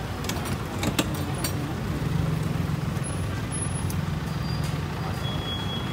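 Street traffic with a motor vehicle engine running close by, its hum swelling for a few seconds in the middle. A few sharp knocks sound in the first second and a half.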